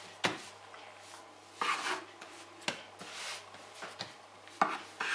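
Kitchen knife cutting through soft bread dough and knocking against a floured wooden tabletop: several short sharp knocks with soft scraping and rubbing between them.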